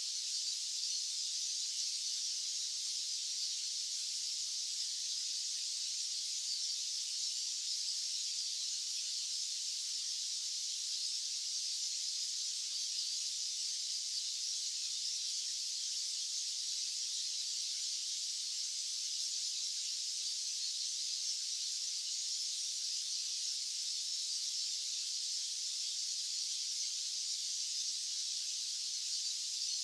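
Steady white-noise hiss, unchanging throughout, pitched high with its energy in the upper range and no low rumble.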